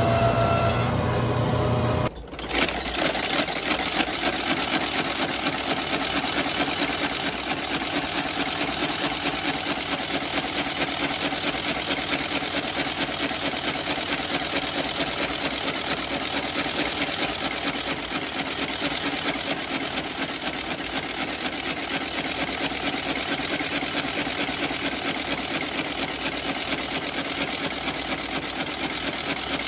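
Outsole stitching machine running steadily in a fast, even mechanical clatter as a boot's sole is stitched. For about the first two seconds a different shop machine's motor hums with a steady tone, then it breaks off.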